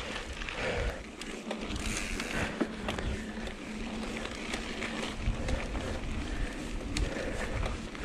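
Mountain bike rolling fast over a gravel forest track: a steady hiss of tyres on loose gravel, with wind rumbling on the action camera's microphone and scattered sharp clicks and rattles from stones and the bike.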